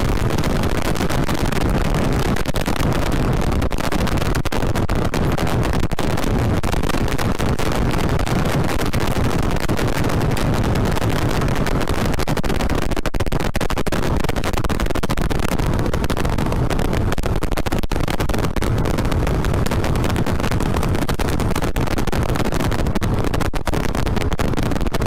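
A 2007 Yamaha Vixion motorcycle ridden at about 60 to 80 km/h, heard as wind rushing over the microphone with the bike's 150 cc single-cylinder engine running beneath it. A steady, even rush of noise, heaviest in the low end.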